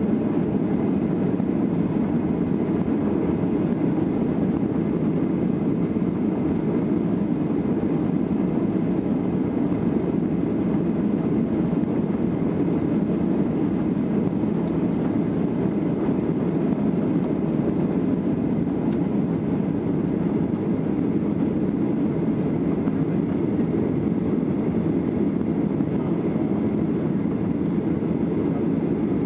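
Cabin noise of a Boeing 737-800 with its CFM56-7B engines at takeoff thrust: a steady, loud low rumble through the takeoff run and into the initial climb.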